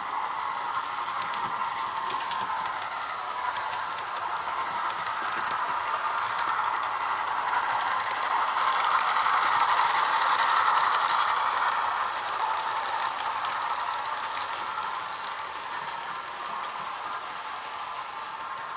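Hornby OO gauge A3 'Flying Scotsman' model steam locomotive running on its track: a steady rattle of wheels on rail mixed with its onboard sound effects. It swells to its loudest about halfway through as it comes near, then fades a little.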